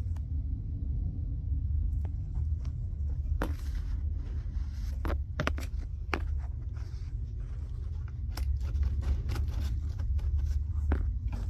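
Scattered clicks and light knocks of hand work on a car's dashboard, parts and tools being handled, over a steady low rumble.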